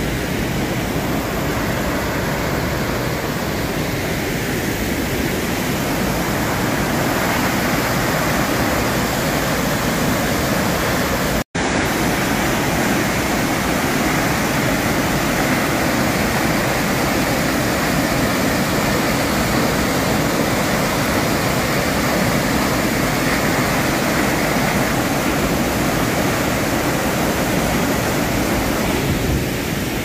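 Waterfall and river in flood after heavy rain, a large volume of muddy water rushing with a steady, even noise. The sound cuts out for an instant about a third of the way in.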